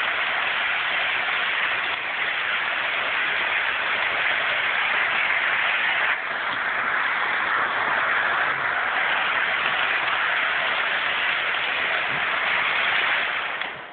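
Toy electric train running fast on plastic track close by: a steady rushing whir of its motor and wheels, falling away at the very end.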